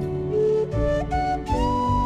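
Background music: a slow, flute-like melody of long held notes, one gliding up and holding about one and a half seconds in, over soft sustained accompaniment.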